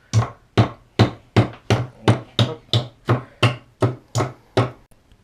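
A hammer driving nails into the wooden side panel of a birdhouse: about thirteen steady blows, roughly three a second, each with a short woody knock, stopping shortly before the end.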